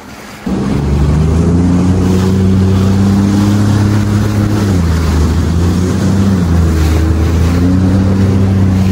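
Sea-Doo personal watercraft engine opening up about half a second in, then running steadily at speed with a deep, even drone. Its pitch dips briefly about halfway through and recovers. Water spray and wind hiss run over it.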